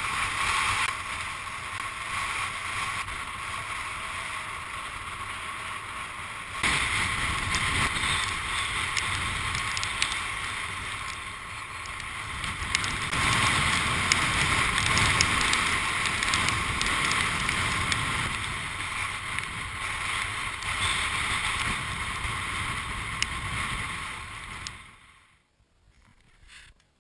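Strong wind of about 38 knots buffeting the camera microphone, a steady rushing rumble with surf beneath it. It grows louder about seven seconds in and fades out near the end.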